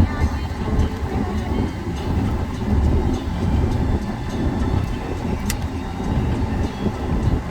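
Car driving on a snowy road: a steady low rumble of tyres and engine, with one sharp click about five and a half seconds in.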